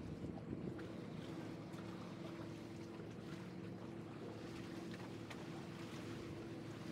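A boat's engine running steadily, a faint low hum, with light wind noise on the microphone.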